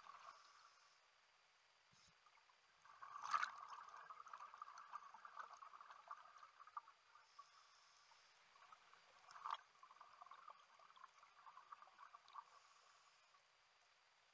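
Scuba regulator exhaust bubbles heard underwater: faint crackly bubbling in stretches of a few seconds with short pauses between, the rhythm of a diver's breathing. A sharp click comes about three seconds in, and a smaller one a few seconds before the end.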